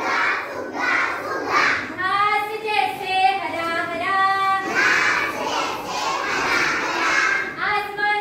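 A class of young children singing an action poem together in unison. Stretches of held, sung notes alternate with louder, chanted or shouted lines.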